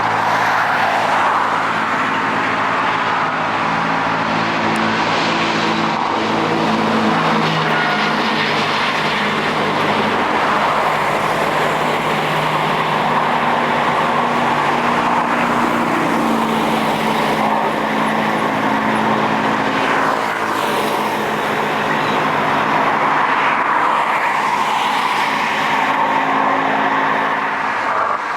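Airliner's jet engines at takeoff thrust: a loud, steady noise with several engine tones drifting slowly in pitch.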